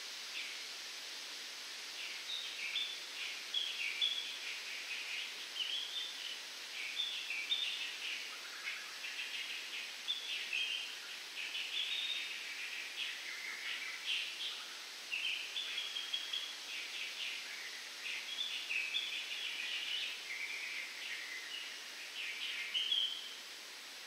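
Birds in coconut palms calling in a long run of quick, varied chirps, starting about two seconds in and stopping shortly before the end. Under them runs a steady hiss of wind through the palm fronds.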